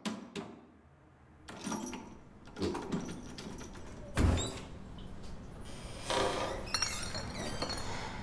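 A heavy door: a few sharp knocks and clatter, then a loud deep bang about four seconds in as the door is shoved open, followed by steady room noise and more rattling.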